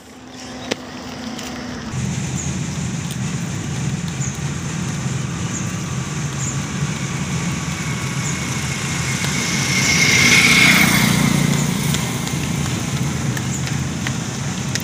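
A motor vehicle engine running steadily, with a louder vehicle passing about ten seconds in.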